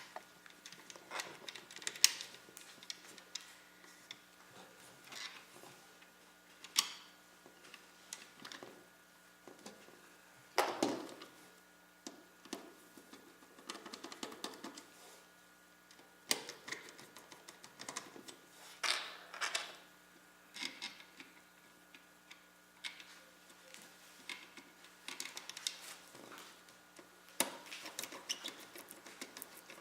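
Small clicks, taps and rustles of hands handling computer parts and long mounting screws, with a few louder knocks.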